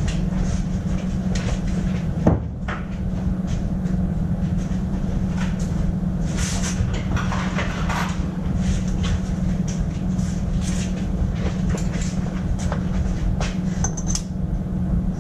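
Workshop background noise: a steady low machine hum, with scattered metal clinks and knocks of tools and parts being handled. One sharper knock comes about two seconds in.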